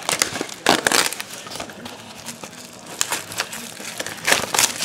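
Plastic shrink wrap crinkling and tearing in irregular rustling bursts as it is punctured with a pen and pulled off a sealed box of trading cards.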